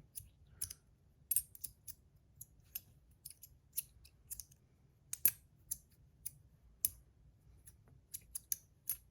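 Brass micro magnetic slider fidget being worked back and forth, its metal parts snapping together under the magnets with sharp, irregular clicks, about two a second.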